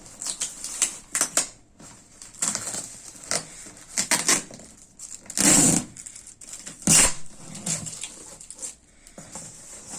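Packaging being opened and handled: an irregular run of scrapes, rustles and knocks, with two louder scraping rushes about five and a half and seven seconds in.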